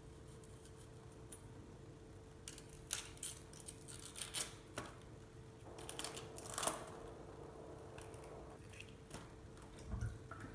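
Knife peeling a small onion: quiet, irregular scrapes and clicks of the blade on the onion skin, coming in clusters, over a faint steady hum.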